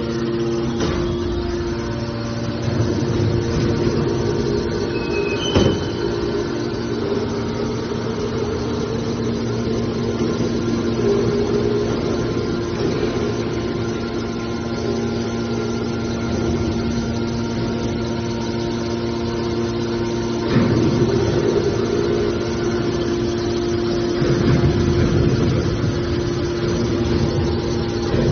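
Hydraulic scrap baler running, its power unit giving a steady hum with a couple of held tones. There is a sharp knock about five and a half seconds in, and the machine grows louder for a few seconds twice in the second half.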